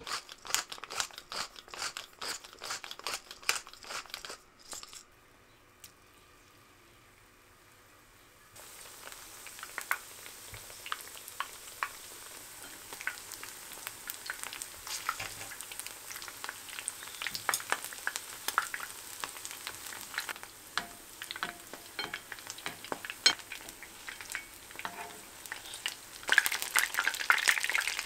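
A pepper mill grinding black pepper, a quick run of clicks for about five seconds. After a short pause, corn and shiso-leaf kakiage fritters frying in oil: a steady sizzle with scattered pops that grows louder near the end.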